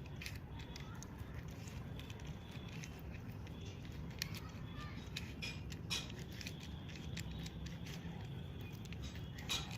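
Small 3x3 Rubik's cube being turned by hand: irregular light plastic clicks as its layers are twisted, over a steady low background hum.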